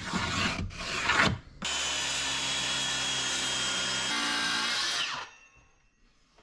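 A pencil scratches along the edge of a wooden template onto a mahogany board for about a second and a half. Then a handheld circular saw runs steadily for about three and a half seconds, cutting the board, its tone changing once near the end before it quickly winds down.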